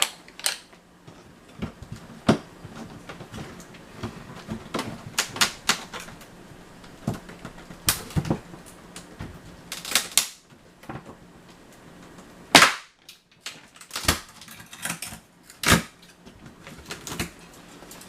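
Irregular sharp cracks and knocks of an old pine ceiling board being broken out, with scattered snaps and taps and a few louder cracks in the second half.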